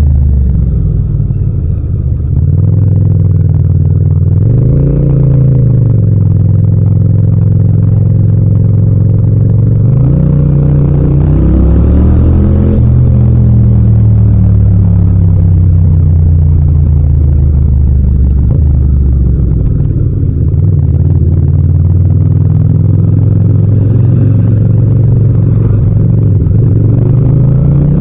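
Yamaha MT-07's 689 cc parallel-twin engine running under way, heard close from the rider's seat. Its pitch climbs with the throttle about four seconds in, again around ten to twelve seconds, and near the end, and sinks slowly in between.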